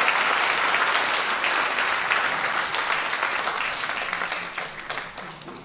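Audience applauding after a talk. The clapping is steady at first, then thins out and dies away near the end.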